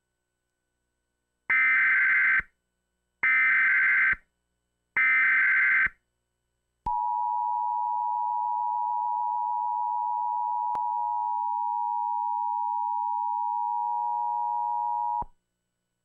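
Emergency Alert System tones for a tornado warning: three short bursts of SAME header data, each about a second long, then the steady two-tone attention signal, which starts about seven seconds in and runs for about eight seconds before cutting off.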